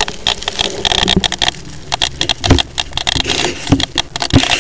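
Close-up handling noise on a small radio-control plane, picked up by its onboard camera: irregular clicks, scrapes and a few dull knocks as hands close the plane up before the flight.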